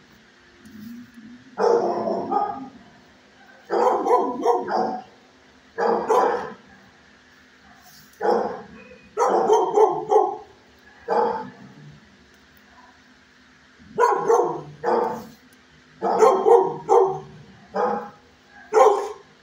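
Shelter dogs barking in short bouts of one to several barks every second or two, with a lull of about two seconds near the middle.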